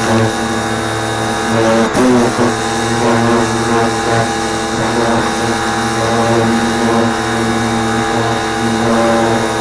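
Intro music of sustained droning tones, with a low note that comes and goes.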